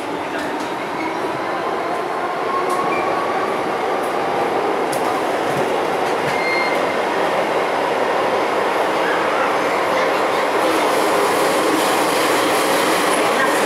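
Hong Kong MTR M-Train heard from inside the car as it pulls away from a station and gathers speed: a faint rising motor whine in the first few seconds over the steady rumble of wheels on rail, growing gradually louder.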